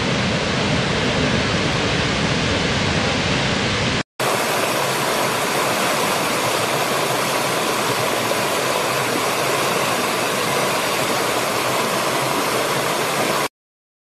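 Steady rushing roar of a waterfall. About four seconds in it cuts to another waterfall recording with a thinner, hissier sound and less low rumble, which stops abruptly near the end.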